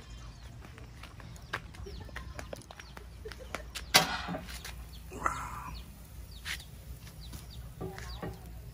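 Chickens clucking in the background, with a sharp metallic clank about four seconds in as the lid of a steel barrel grill is lifted.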